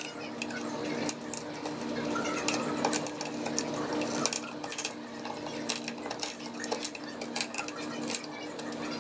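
A screwdriver picking and scraping at staples and old cane webbing in a chair back, making scattered small metallic clicks and scratches. A faint steady hum runs underneath.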